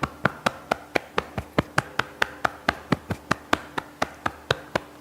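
Light, even taps of a loosely cupped hollow fist on the upper chest just below the collarbone, about four or five a second. This is a self-massage tapping done gently, not with force.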